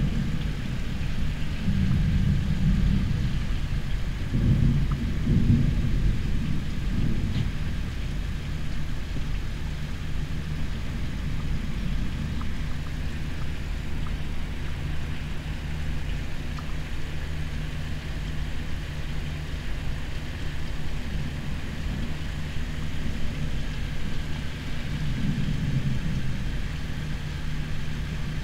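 Air conditioner running with a steady low hum, while distant thunder rumbles low several times: about two seconds in, around five to seven seconds in, and again near the end.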